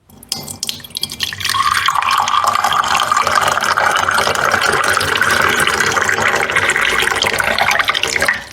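Water running in a steady stream into a container, its tone slowly rising as it fills. It starts softly, grows louder about a second and a half in, and fades out near the end.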